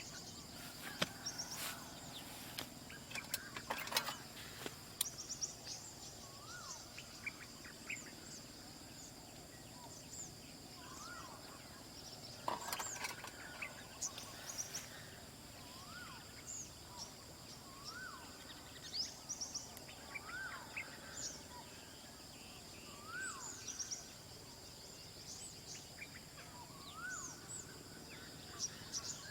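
Birds singing at dawn: one bird repeats a short rising-then-falling whistled note about every one and a half to two seconds through the second half, among scattered high chirps from others, over a steady high-pitched insect drone. A few sharp knocks or clicks sound near the start and around the middle.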